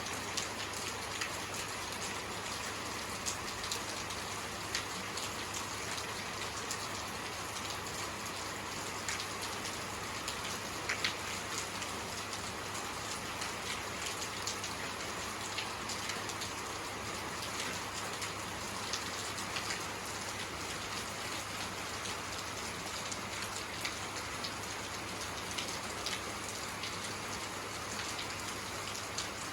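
Steady rainfall, a continuous hiss with individual drops ticking on a surface scattered throughout.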